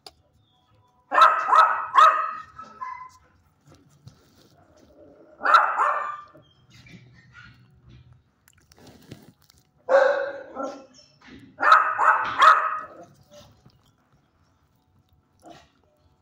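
A dog barking in four short bouts of one to three barks, several seconds apart.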